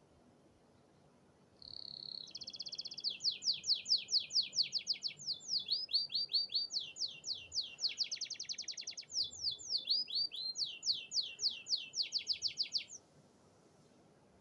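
Domestic canary singing one long, fast song of rapidly repeated sweeping trill notes, changing phrase every second or two; it starts under two seconds in and stops shortly before the end.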